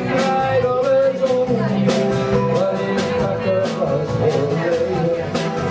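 Live band playing an upbeat rock-and-roll style song, with guitar and a steady drum beat of about two strokes a second.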